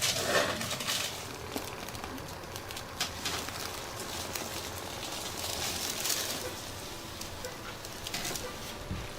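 Crackly rustling with a few sharp clicks, loudest at the very start: hands and clothing shifting against a padded treatment table during hands-on bodywork.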